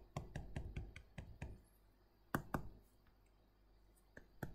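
Stylus tapping and clicking against a tablet screen during handwriting: a quick run of light taps in the first second and a half, two more just after two seconds in, a pause, then a couple more near the end.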